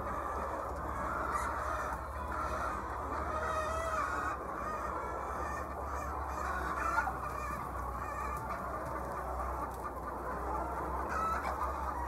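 A large flock of hens clucking and calling together, a steady dense chatter with now and then a louder single call, one standing out about seven seconds in.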